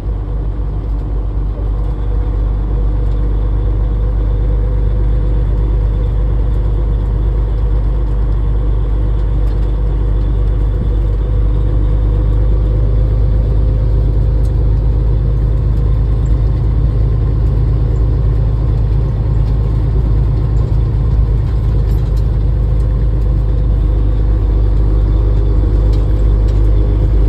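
Semi-truck's diesel engine running steadily under way, heard from inside the cab with road noise as a constant low drone that grows a little louder over the first couple of seconds.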